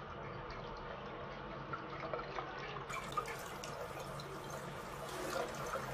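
Bathroom sink tap running, the stream of water splashing over a small dog held under it in the basin.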